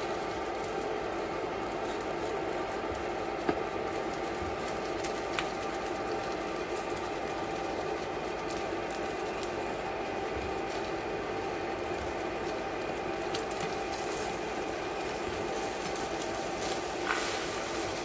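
Steady hum of a countertop electric burner's cooling fan, with a few light clicks of a spatula and turner against a nonstick pan as an omelet is rolled.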